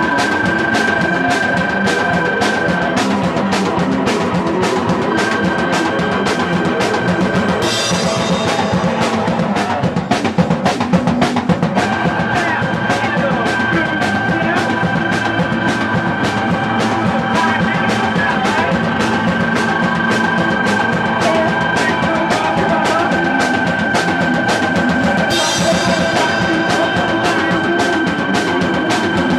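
Live punk band playing: a fast, steady drum-kit beat under guitar and synth, with a high held note that drops out for moments and comes back.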